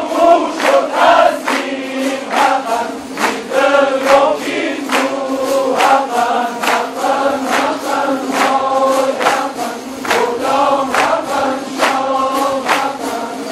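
A large ensemble of Kurdish tanburs, long-necked lutes, strummed together in a steady rhythm of about three strokes a second, with many voices chanting in chorus over them.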